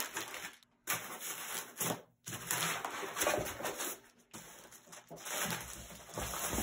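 Thin plastic bag rustling and crinkling as it is handled and unwrapped, in irregular stretches broken by a few brief, complete dropouts.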